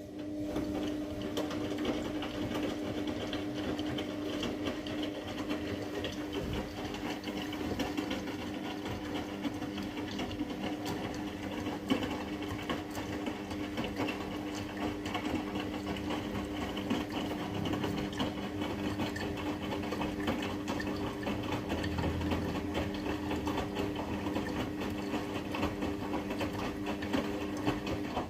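Washing machine running: a steady motor hum with a constant tone and a fast, even mechanical whir.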